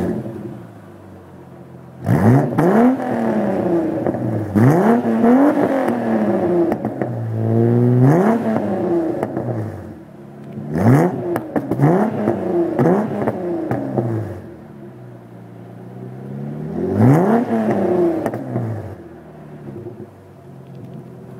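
Holden Commodore 3.8 V6 running through its exhaust, stationary. It idles, then is revved in repeated quick blips, the pitch rising and falling back each time. It drops to idle between groups of revs and near the end.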